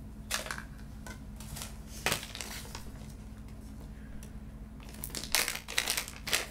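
Hard plastic clicks and rattles from handling an adhesive tape runner that has run out of tape: a few scattered clicks, then a quicker run of clicks near the end.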